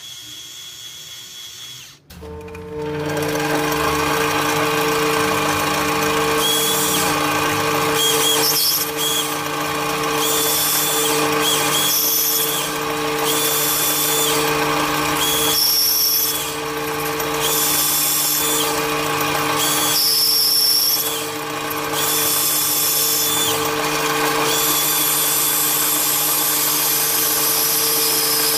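Mini lathe turning brass, its motor and gearing running with a steady hum, while a cordless drill serves as a power feed on the slide. A higher whine comes and goes about every second and a half.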